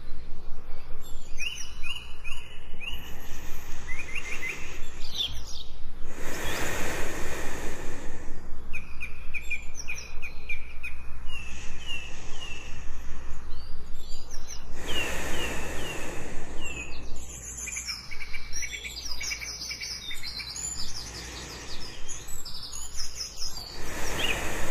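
Birds chirping in runs of quick, falling whistled notes over a steady low hum, with a slow breath heard as a soft whoosh about every nine seconds.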